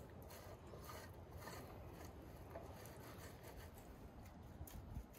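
Soft homemade cheese being grated on a metal box grater: faint, irregular rasping strokes, a couple a second.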